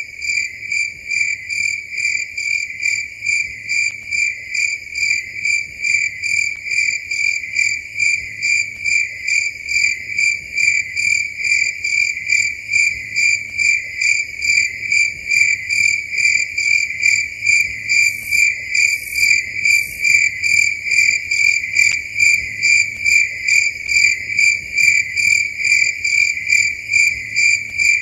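Crickets chirping at night in a steady, continuous pulsing trill, about two to three pulses a second. Three short, higher-pitched chirps sound about two-thirds of the way through.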